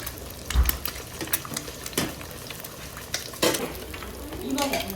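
Food frying and sizzling in a pan, with a utensil stirring it and clicking and scraping against the pan many times.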